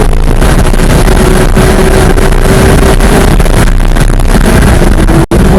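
Porsche 991.1 GT3's naturally aspirated flat-six running hard on track, heard from inside the car over heavy wind and road noise. The engine note holds steady with its pitch slowly drifting down, and the sound cuts out for an instant near the end.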